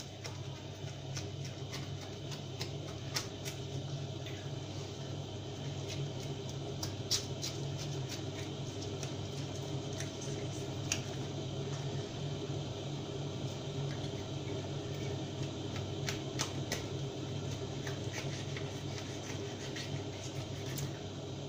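A knife cutting and scraping the scaly skin away from a carp's flesh: irregular small clicks and scrapes of the blade against scales and the counter, over a steady low hum.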